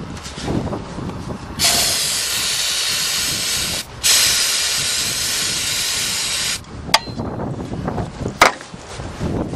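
Aerosol starting fluid sprayed in two long hissing bursts of about two seconds each into a no-start engine, the Buick Regal's 3.8 V6. Two sharp clicks follow near the end.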